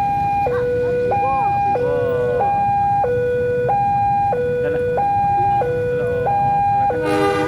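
Railway level-crossing warning alarm sounding, a loud electronic two-tone signal alternating low and high about every two-thirds of a second, warning that a train is approaching the crossing.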